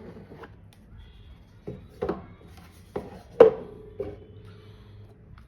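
Watch packaging box being handled and opened: a series of knocks and taps, about five in all. The loudest comes about three and a half seconds in and is followed by a low hum that lasts a couple of seconds.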